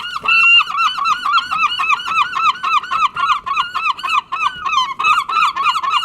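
Seagulls calling in a rapid, unbroken run of short yelping notes, about five a second.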